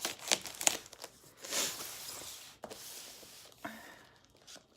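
A package being torn open by hand, its wrapping crinkling and rustling, with a longer tearing sound about a second and a half in and a sharp click near the end.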